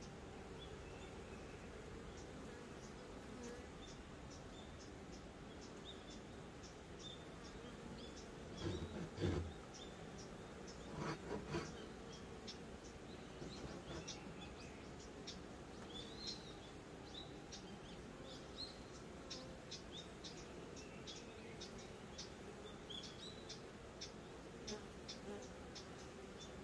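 Honeybees buzzing around their hive in a steady low hum, with a bee flying close by, louder, about nine seconds in and again about eleven seconds in.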